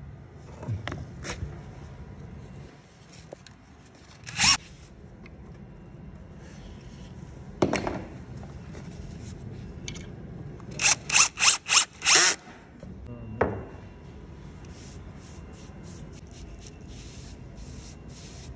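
Cordless drill-driver run in short trigger bursts while driving screws into pine, five quick bursts in a row a little past the middle. A few single short rasping noises from work on the wood come before it, and faint brief rasps follow near the end.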